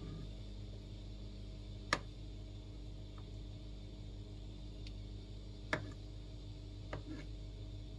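A metal ladle clicks sharply against the rim of a soup pot three times, about two, six and seven seconds in, as foam is skimmed off the simmering broth. A steady low hum runs underneath.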